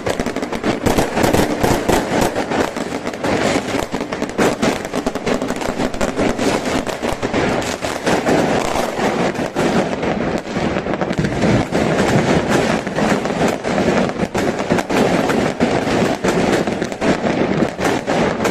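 Fireworks and firecrackers going off in a continuous rapid crackle of sharp bangs, many overlapping each second.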